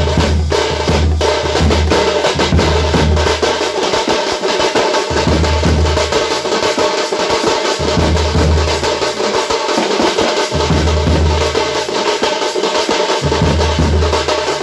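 Street band set playing loud, fast drumming on snare and bass drums, with held melody notes over it and a deep bass note that sounds in repeated stretches of about two and a half seconds.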